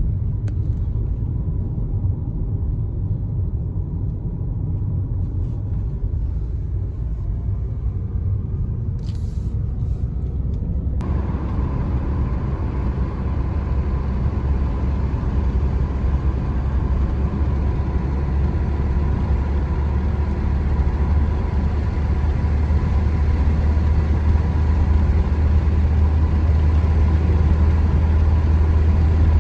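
A car driving along the road: a steady low rumble of engine and road noise. About eleven seconds in, a brighter rushing noise joins abruptly and stays.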